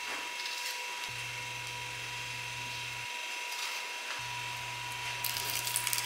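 Quiet kitchen room tone with a faint steady hum, then near the end a short run of crisp crunches as a deep-fried slice of potato terrine is bitten into.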